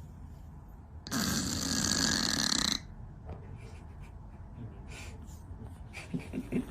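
A cat snoring: one long snoring breath about a second in, lasting under two seconds.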